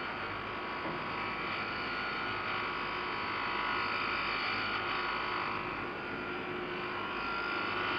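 Crankshaft grinding machine running, its high-speed carborundum wheel grinding the bearing journals with a steady whining hum that swells slightly in the middle.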